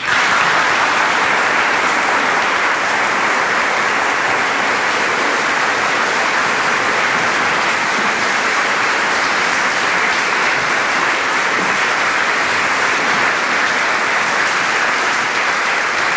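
Audience applauding at the close of a live performance: the clapping breaks out all at once and goes on steadily.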